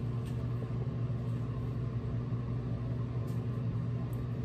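A steady low mechanical hum, even in pitch and level throughout, with a few faint ticks over it.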